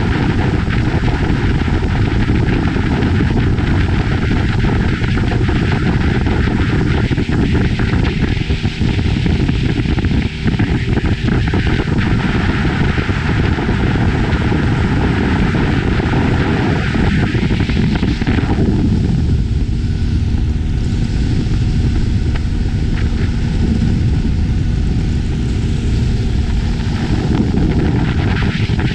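Motorboat running at speed: a steady loud rush of wind on the microphone over the engine's drone. About two-thirds of the way through the hiss eases and the engine's steady hum comes through more clearly.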